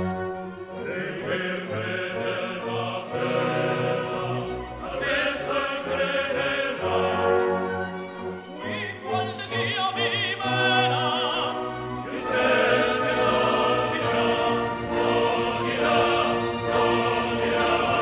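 Opera music: an orchestra accompanying operatic singing with strong vibrato.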